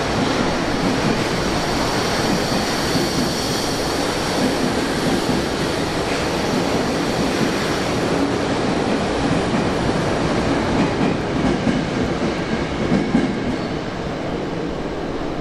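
Subway train running through an underground station: a steady, continuous rolling noise, with a faint high whine in the first few seconds.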